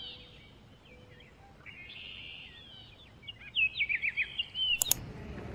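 Small songbirds chirping over a faint outdoor hiss, the chirps scattered at first and then a quick run of them about three and a half seconds in. A sharp click sounds just before the end.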